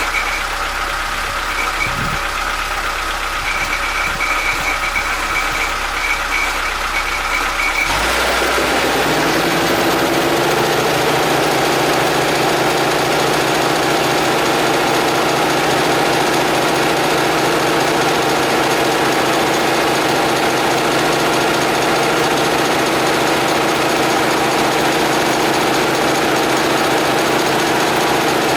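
Homemade air compressor running. About eight seconds in, it gets louder as a motor starts and rises in pitch over a couple of seconds, then runs steadily.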